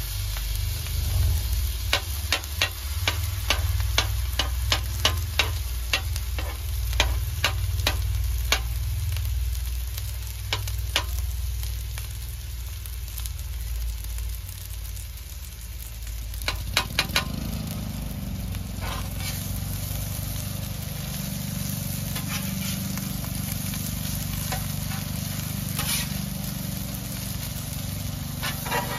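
Rice and vegetables sizzling on a steel flat-top griddle over a steady low rumble. A run of sharp metal clicks comes about twice a second for the first ten seconds or so, and a short cluster follows about halfway through, as the spatula is worked against the cooktop.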